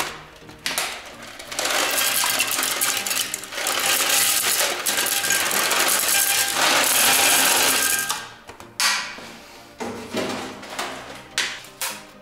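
Thin, crunchy sweet straw sticks tipped from a plastic tray and clattering into a ceramic toilet bowl: a dense rattle lasting about six seconds, then a few scattered clicks and taps.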